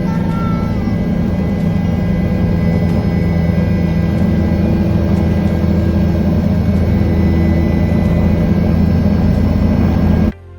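Helicopter running steadily in flight: a loud, even drone of rotor and engine that cuts off suddenly near the end.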